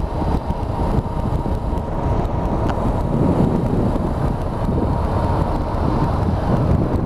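Motorcycle riding at a steady cruise, its engine and tyre noise under steady wind rushing over the microphone.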